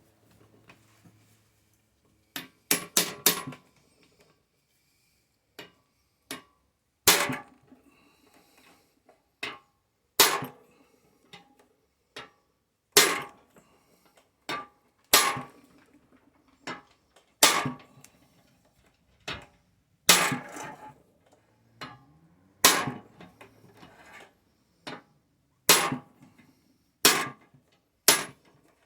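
Hammer blows on a hand driver set in a seized, rusted screw: about a dozen sharp metal strikes, roughly one every two to three seconds, with lighter taps between them and a quick cluster of blows near the start.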